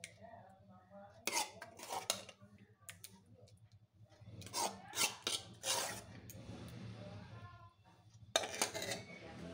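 A spoon scraping and clinking against a plate as it spreads cooked oats, in several short strokes: two about a second apart, a cluster in the middle and one more near the end.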